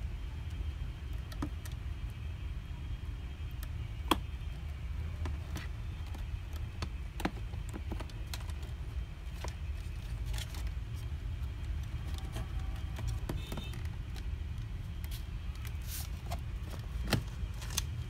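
Scattered light clicks and rattles of a plastic toy-car steering wheel and its wire connector being handled and fitted, over a steady low hum. A sharper click comes about four seconds in and another near the end.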